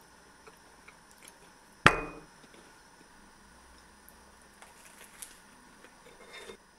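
A single sharp knock of a hard object striking a surface, about two seconds in, with a short ring after it. A few faint clicks and a brief rustle come near the end.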